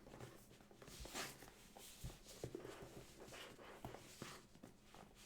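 Faint rustles and light taps of hands handling a cardboard trading-card box while trying to open its lid.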